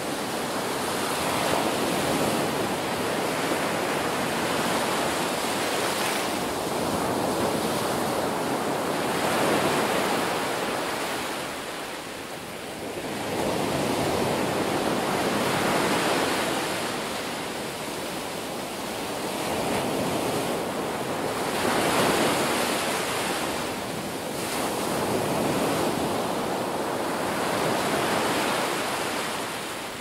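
Small ocean waves breaking and washing up a sandy beach: a steady rush of surf that swells and eases every few seconds.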